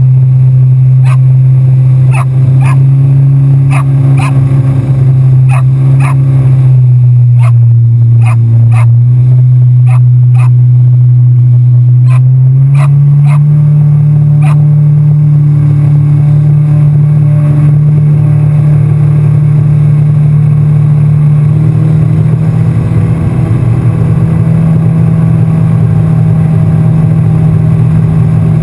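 Yamaha FX SHO personal watercraft's supercharged four-stroke engine running at speed, a loud steady drone that drops in pitch about seven seconds in, climbs again about thirteen seconds in, and rises once more a little past twenty seconds. A run of sharp knocks sounds over the first twelve seconds.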